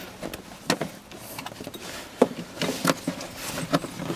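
Old serpentine belt being worked out by hand around the engine pulleys and fan shroud: rubbing with a scatter of light knocks and clicks, about half a dozen spread irregularly.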